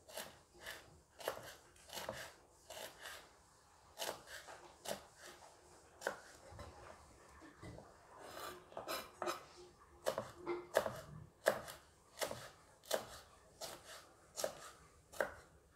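Kitchen knife slicing red chilies on a wooden cutting board: irregular knocks of the blade on the board, a few a second, with a short pause near the middle.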